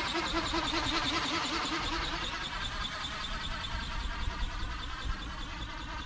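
Radio-controlled flapping-wing model condor (ornithopter) flying overhead, its motor drive whining with a pitch that wavers about three times a second; the lower part of the whine fades about halfway through. A low wind rumble runs underneath.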